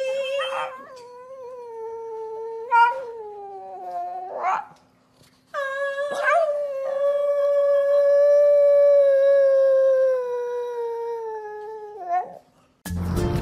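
Pug howling. A wavering howl of about four seconds slides down and ends in a short rising yip. After a brief pause comes a longer howl of about six seconds that slowly drifts down in pitch.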